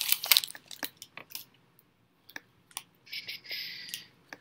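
Trading cards being handled and flicked through: a scatter of small clicks and taps, then a brief rasp of card sliding against card a little after three seconds in.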